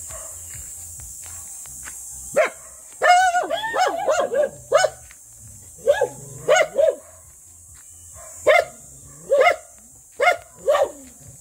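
A dog barking: a first bark a couple of seconds in, a quick run of barks just after, then single and paired barks spaced out to near the end.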